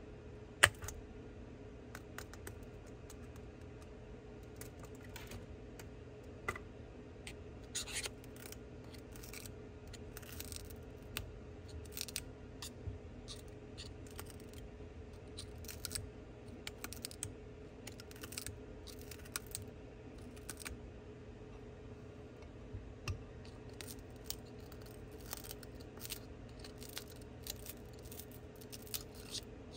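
A metal blade scraping and chipping shattered back glass off an iPhone 12 Pro Max: a run of short, irregular scratchy strokes and glassy clicks, with one sharp click under a second in. A steady low hum runs underneath.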